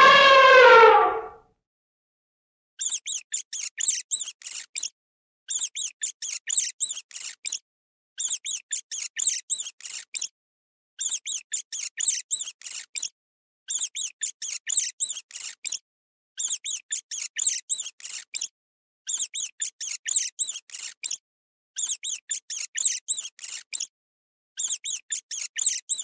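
A pet rat squeaking: rapid series of high squeaks in bursts of about two seconds, repeating about every two and a half seconds with silence between. It is preceded by the end of an elephant call that falls in pitch and stops about a second in.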